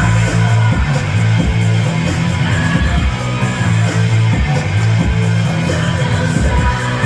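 Rock music with electric guitar, a steady bass line and drum beats.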